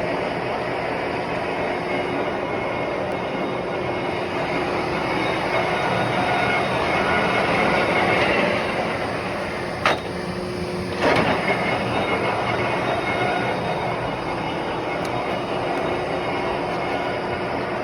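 Large Lansing engine lathe running under power, a steady mechanical running noise of gears and spindle. About ten seconds in there is a sharp click, and a second later a short louder burst.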